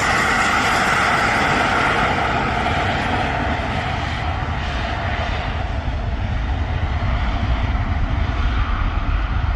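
Airbus A321 jet airliner passing by with steady engine noise: a high whine fades over the first few seconds while a low rumble grows louder toward the end.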